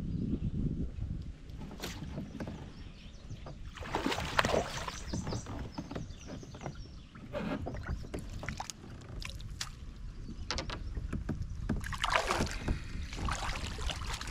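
A hooked largemouth bass splashing and thrashing at the surface as it is fought to the side of a kayak, in two bursts, the first about four seconds in and the second near the end. A steady low rumble of wind on the microphone runs underneath.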